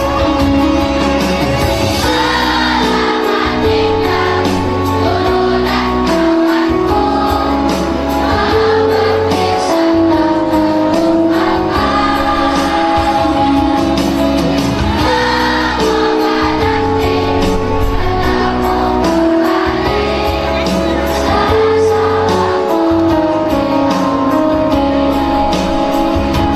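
A children's choir of sixth-grade pupils singing a song over instrumental backing music, holding long notes in a stepwise melody.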